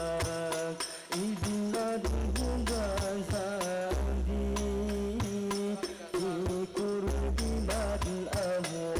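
Islamic devotional song (sholawat) sung over a steady beat of frame drums and jingles with long deep bass notes, played through a PA sound system.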